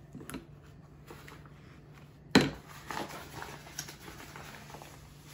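Quiet handling sounds at a kitchen counter: a few faint clicks and one sharp knock a little over two seconds in, over a low steady hum.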